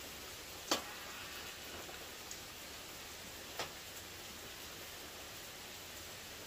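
Rain falling steadily as an even hiss, with two sharp taps of drops on a hard surface, the first and louder about a second in, the second a few seconds later.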